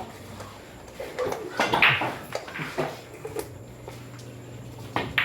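Sharp clacks of pool balls striking during play, a few separate knocks, over a low steady hum and room murmur.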